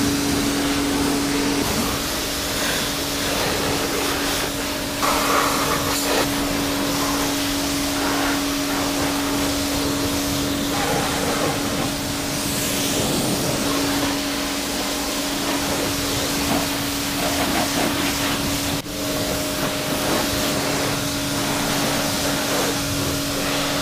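A Kärcher K5 pressure washer runs with a steady electric hum while the lance's jet hisses against the motorcycle, rinsing off snow foam.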